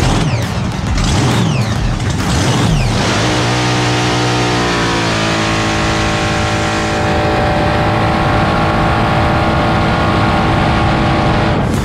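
Supercharged big-block Chevy V8 of a hydroplane drag boat at full throttle, heard from onboard. Its pitch climbs in several quick rising sweeps over the first few seconds, then holds steady and high through the run over a rushing hiss of wind and spray, cutting off at the end.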